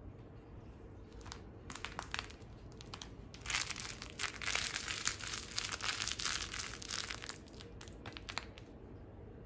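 Crinkling rustle from a feathered cat toy wand being shaken and batted about on a leather couch during play with a cat. It runs for about four seconds from roughly three and a half seconds in, with a few scattered short clicks and rustles before and after.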